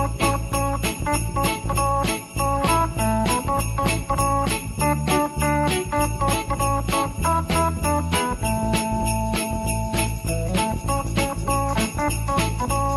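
Background music: a steady beat with jingle bells, a bass line and held melody notes.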